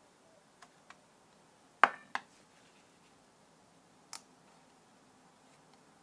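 Small, sharp clicks and taps of tools and parts being handled on a Kindle's circuit board: two faint clicks, then a loud double click about two seconds in, and one more click a couple of seconds later.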